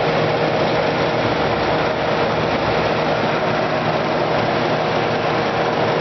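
Kenmore Model 5925 25-pint dehumidifier running: a steady rush of air from its fan with a steady hum from the compressor underneath.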